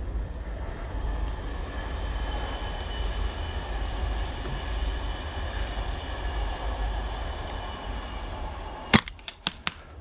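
Steady rumbling, rushing background noise with a faint whine. About a second before the end, a quick string of five sharp cracks from an airsoft gas blowback gun firing, the first the loudest.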